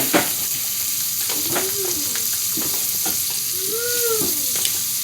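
Oiled salmon pieces sizzling in a frying pan: a steady frying hiss.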